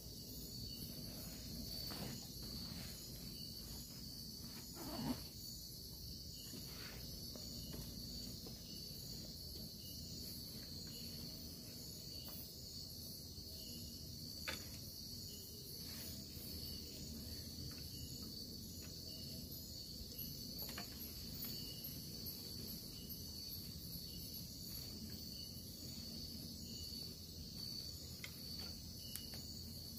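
Night insects, crickets among them, keep up a steady high-pitched chorus with faint chirps repeating about once a second. A few scattered knocks and rustles come from gear being handled on a wooden stick platform, the loudest about five seconds in.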